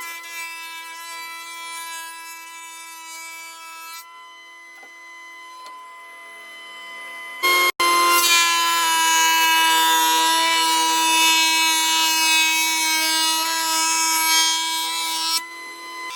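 A woodworking cutter machine fitted with a profile cutter, running with a steady high whine, then about halfway through biting into a teak plank: louder, with a hissing cutting noise, until it eases back to the free-running whine near the end.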